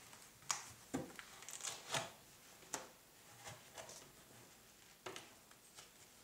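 An iPad 2 being pressed and fitted into a Hama folio case: a few sharp clicks and knocks of the tablet's edges snapping into the case's frame, with light rubbing and handling noise between them.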